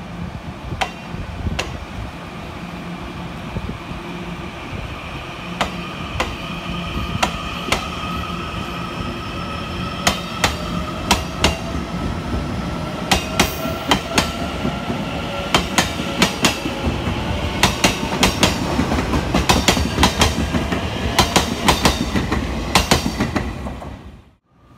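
A Taiwan Railways TEMU2000 Puyuma tilting electric train runs past close by. Its wheels clack over the rail joints, the clacks coming faster and closer together toward the end, under a faint whine that rises slowly in pitch as the train gathers speed. The sound cuts off abruptly just before the end.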